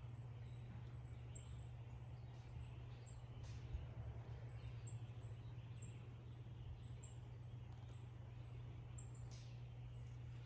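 Faint woodland ambience with short, high-pitched chirps repeating a couple of times a second over a steady low hum.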